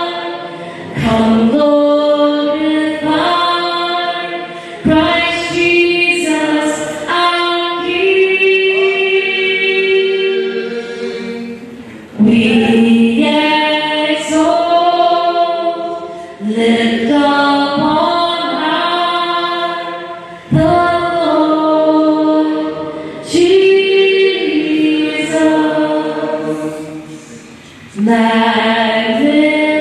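A choir singing a slow worship song in long, held phrases.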